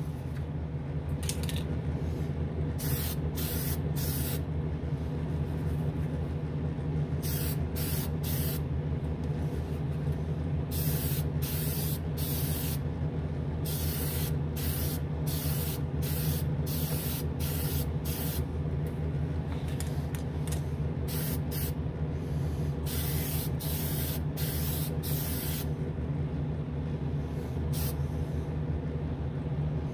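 Testors Extreme Lacquer aerosol can spraying in many short hissing bursts, from a fraction of a second to over a second each with gaps between, laying a coat of lacquer onto a model car body. A spray booth's exhaust fan hums steadily underneath.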